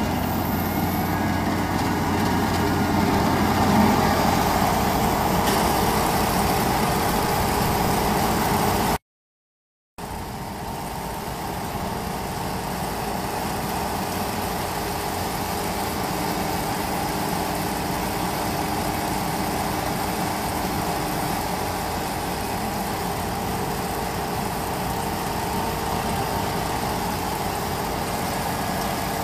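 Kubota ER112 single-cylinder diesel engine running steadily. The sound drops out completely for about a second around nine seconds in, then the same steady running resumes.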